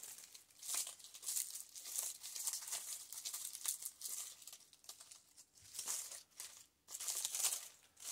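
Dry, crunchy autumn leaves crackling and rustling as they are handled and pressed onto a paper journal page, in several irregular bouts with short pauses between.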